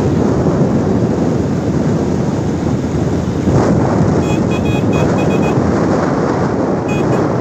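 Wind buffeting the microphone and steady road rumble from riding in an open vehicle at speed. Short high beeps come in a quick run about four seconds in and once more near the end.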